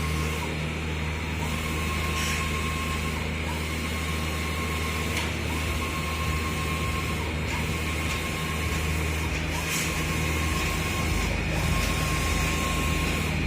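UV sticker printer running while it prints: a steady machine hum with a whine that breaks off and resumes every one to two seconds, and a few faint clicks.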